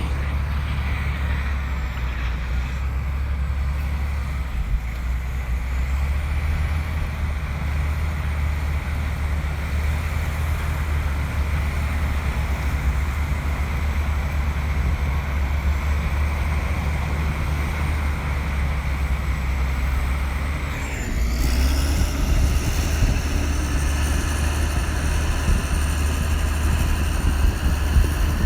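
Komatsu bulldozer's diesel engine running with a steady deep rumble. About two-thirds of the way in the sound grows louder and harsher.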